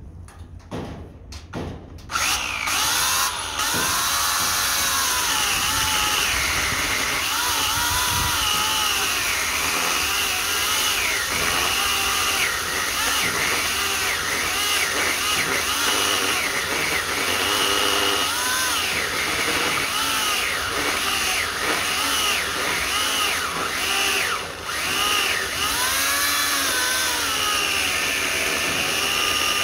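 Oregon CS1400 corded electric chainsaw (15 amp motor, 16 inch bar) starting up about two seconds in and cutting into a wooden stump. Its motor whine wavers up and down in pitch as the chain loads in the wood, easing off briefly near the end.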